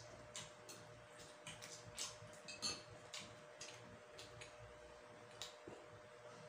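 Faint, irregular clicks and smacks of eating at close range: mouths chewing and hands handling food, with a few louder clicks about two seconds in. A faint steady hum runs underneath.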